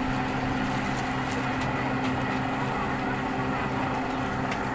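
An engine running steadily, a constant low hum over background noise, with a few faint clicks.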